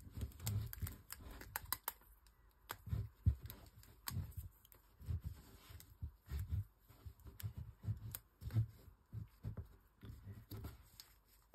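Hands handling a doll and tying an elastic band around the bottom of its ponytail: irregular soft clicks, rustles and low knocks from fingers, hair and doll body near the microphone.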